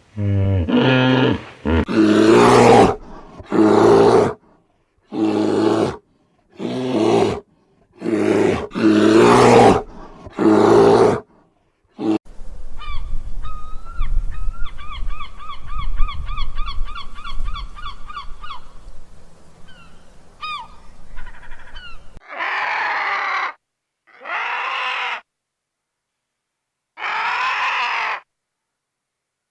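A sequence of animal calls. First comes a run of loud, deep grunting honks, about one a second. A fast string of short high chirps over a low rumble follows, and then separate drawn-out calls about a second long with silent gaps between them.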